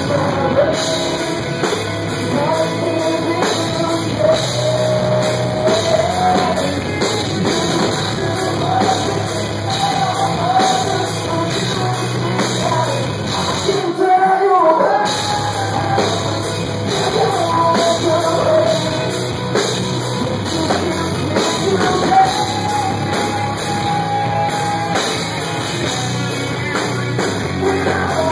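A rock band playing live: a male singer over electric guitars, bass and drums. About halfway through, the bass and drums stop for about a second while the singing carries on.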